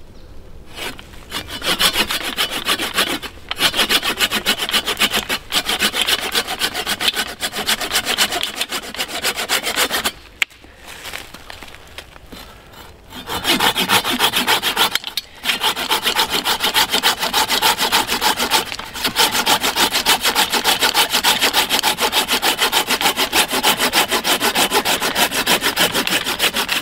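Hand pruning saw with a curved blade cutting through a branch of a fallen tree, in steady, rapid back-and-forth strokes. The sawing stops briefly a few times, longest for about three seconds around ten seconds in, then carries on.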